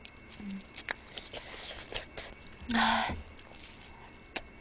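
Close-miked eating sounds of someone chewing and sucking on spicy chicken feet: small wet clicks and smacks, with one louder, short mouth sound a little past halfway.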